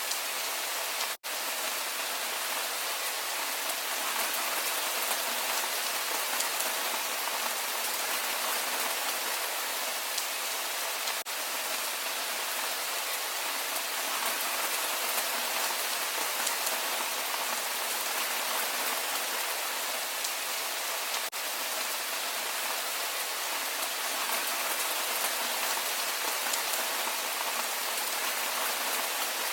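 Steady rain falling, an even hiss of many drops without any pitched sound. It breaks off for an instant about a second in.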